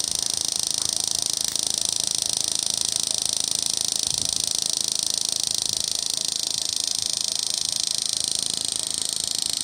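Steady high-pitched electric buzz from a 1500 W electric shock-fishing inverter, its output leads arcing. The pitch shifts slightly near the end.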